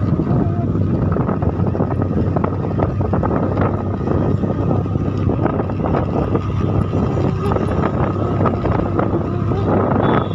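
A vehicle's engine running steadily at road speed, with heavy wind buffeting on the microphone.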